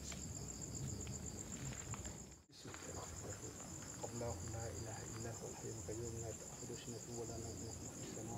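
Steady high-pitched chorus of crickets chirping at night, briefly cutting out about two and a half seconds in.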